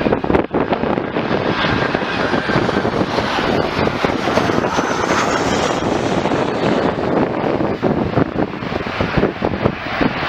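Jet airliner engines running loud and steady as the plane passes, with wind buffeting the microphone.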